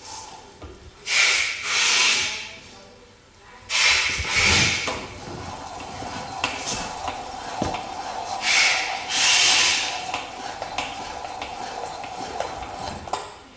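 ALISKID hand-cranked plastic meat grinder being turned with meat in the auger, making a rasping, grinding noise. The noise comes in surges a few seconds apart over a steady whine.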